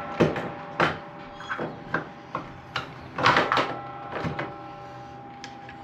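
Irregular clicks and knocks of keypad deadbolt parts being handled and fitted into a door, the loudest cluster a little past the middle, over a faint steady tone.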